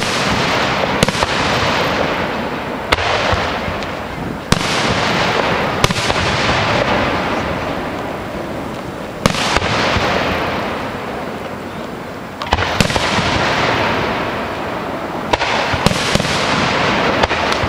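Aerial firework shells bursting overhead: about ten sharp booms, a second to three seconds apart, each trailing off in a long fading rumble.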